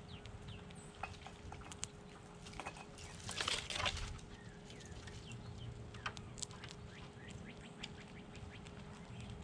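Wild birds calling with many short chirps, over a faint steady hum. About three and a half seconds in comes one louder burst of under a second, the loudest sound here.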